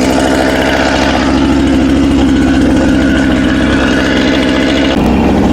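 Husqvarna 455 Rancher two-stroke chainsaw running steadily, freshly started new out of the box after many pulls; its note changes near the end.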